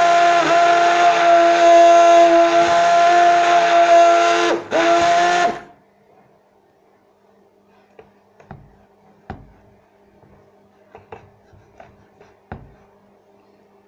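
Immersion blender motor running steadily with a high whine while blending a banana shake, dipping briefly about four and a half seconds in, then switched off at about five and a half seconds. A few faint knocks and clicks follow.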